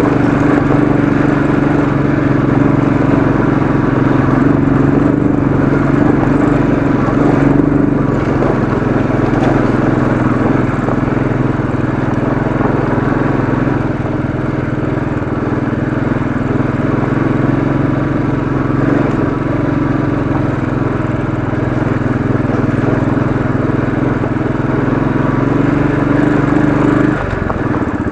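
Royal Enfield Classic 500's single-cylinder engine running steadily under load on a steep dirt climb, dropping off suddenly near the end.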